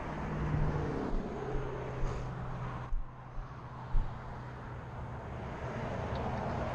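Steady low hum of a vehicle engine running, with a few sharp thumps about three and four seconds in.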